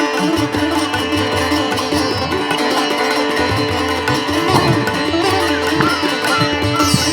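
Background music with sitar-like plucked strings over a steady drone and tabla-like drumming.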